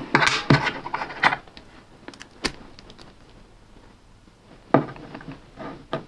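Metal clicks and rattles of a key and split key ring being fiddled against and into a brass puzzle padlock. There is a busy run of clinks in the first second and a half, a few scattered clicks, a quiet stretch, then one sharp click near the end.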